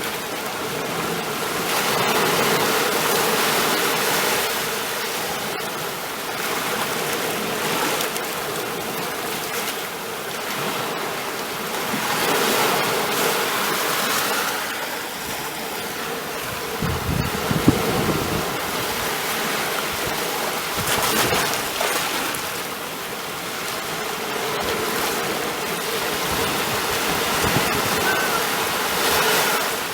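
Ocean waves washing in, a continuous rush that swells and eases every few seconds, with a brief low rumble and a sharp click a little past the middle.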